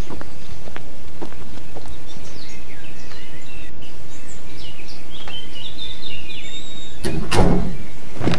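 Birds chirping over a steady low rumbling background noise, with a few light knocks in the first couple of seconds and a loud rumbling thump about seven seconds in.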